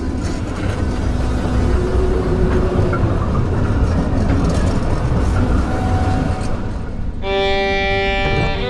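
Film soundtrack: a heavy, low rumbling sound effect for about seven seconds, then a sustained chord from the score enters suddenly and is held.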